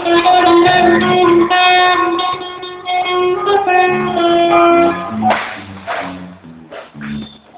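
A band playing music, led by a guitar melody of held notes. About five seconds in, the melody drops out and gives way to a noisier texture over a line of low bass notes.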